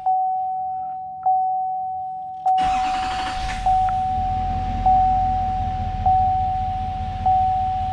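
Truck dash warning chime sounding as a steady tone pulsed about once every 1.2 seconds. About two and a half seconds in, the L5P Duramax 6.6-litre V8 turbo-diesel starts and settles into a low idle under the chime.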